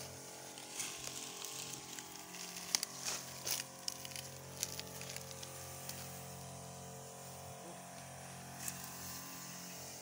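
Knapsack herbicide sprayer running, its pump a steady hum under the hiss of the spray. Scattered crackles and rustles come from dry leaves and stalks being pushed through, a few sharp ones around three seconds in and again near nine seconds.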